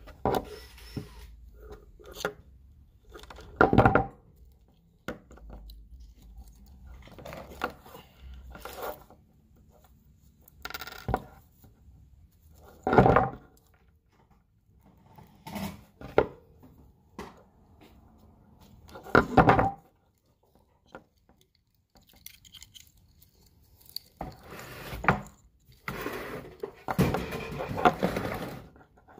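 Handling noise from a car-stereo wiring harness: wires and small plastic crimp connectors rustling and clicking close to the microphone in irregular short bursts, three of them louder, and busier near the end.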